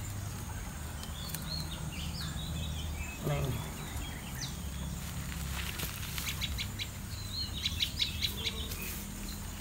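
Small birds chirping in short high calls, then a quick run of rapid high notes in the second half, over a steady low background hum.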